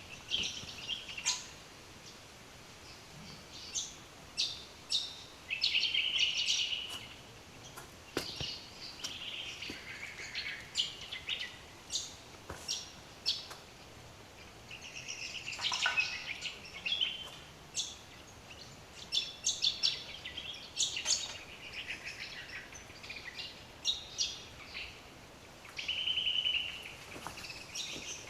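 Birds calling: a run of short, sharp, high chirps, with a longer buzzy trill breaking in several times, about six, sixteen and twenty-six seconds in.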